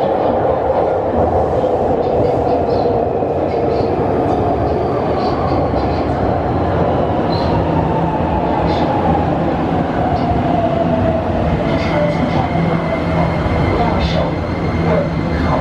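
Beijing Subway Line 9 electric metro train pulling into an underground station and slowing, with a steady rumble of wheels on rail and a motor whine that falls in pitch as it brakes; a steady higher tone comes in about twelve seconds in.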